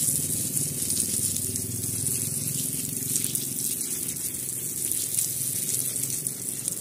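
Garden hose with a spray nozzle shooting a jet of water onto chrysanthemum stems and wet stone paving, a steady, unbroken spray and splash.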